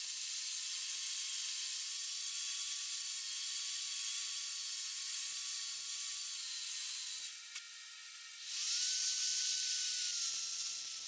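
Electric hand drill running as a small twist bit bores into a rusty metal plate clamped in a vise, a steady motor whine. It stops about seven seconds in and starts again about a second later at a higher pitch.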